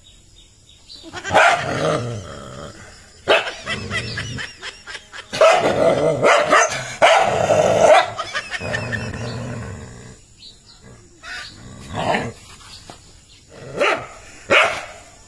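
Dog barking in several loud bouts at its own reflection in a mirror.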